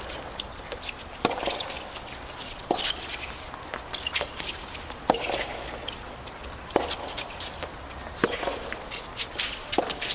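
Soft tennis rally: the soft rubber ball is struck back and forth by rackets, a sharp pop about every one and a half seconds, with fainter knocks and clicks between the hits.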